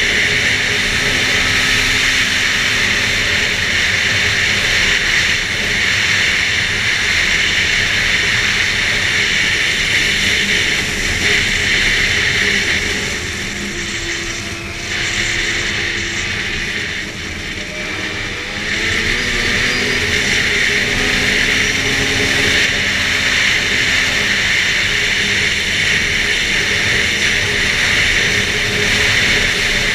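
Arctic Cat F8 snowmobile's two-stroke twin running hard along the trail. The throttle eases off about halfway through, then the engine revs back up and carries on at speed.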